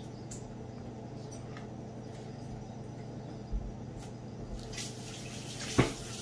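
Balsamic vinegar drizzled from a bottle onto salad greens in a stainless steel bowl: faint dripping and pattering of liquid over a steady low hum. Near the end comes one sharp knock as the bottle is set down on the table.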